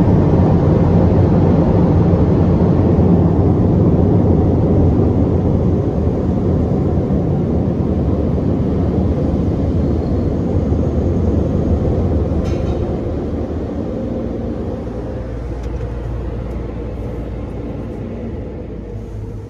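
Belanger tunnel car wash equipment running, heard from inside the car as a loud, steady rushing rumble. It fades gradually over the second half as the car rolls out of the tunnel.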